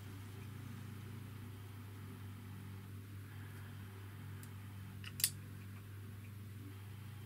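Steady low hum with a single sharp click about five seconds in, from steel digital calipers being slid open to stretch a small rubber drive belt taut for measuring.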